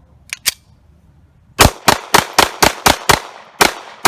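Ruger American 9mm pistol fired rapidly, about eight shots at roughly four a second with a short pause before the last, cycling a magazine of mixed full metal jacket and hollow-point rounds in a feeding-reliability test. Two faint clicks come before the first shot.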